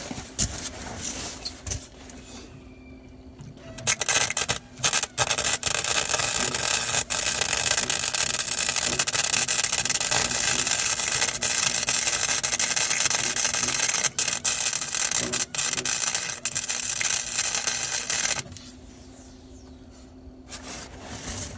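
Welding arc crackling and sizzling steadily for about fourteen seconds while a bead is laid on a car's cross member. It starts with a few short bursts about four seconds in and cuts off suddenly near the end.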